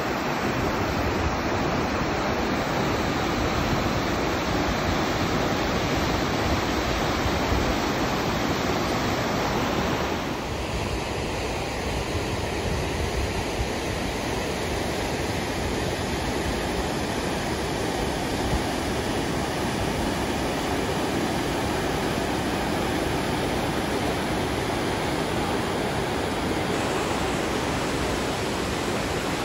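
Fast mountain river rushing over rocks and rapids: a steady, even rush of white water. The tone shifts slightly about ten seconds in.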